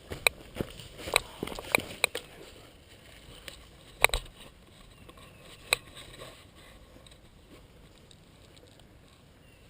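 Sharp clicks or cracks at irregular intervals, several close together in the first two seconds and single ones after about four and six seconds, then only faint background.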